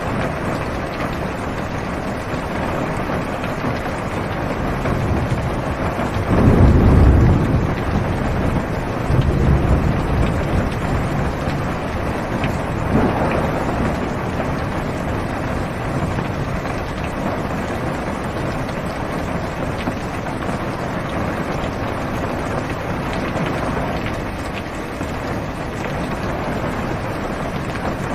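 Steady heavy rain drumming on a car's roof and windows, heard from inside the car, with a low roll of thunder about six seconds in and a weaker one a few seconds later.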